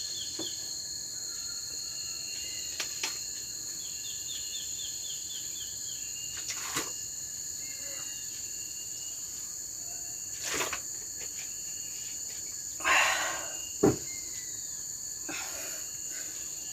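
Steady, high-pitched insect chorus, with a short trill of repeated chirps about four seconds in. A few scattered knocks and rustles sound over it, the loudest of them near the end.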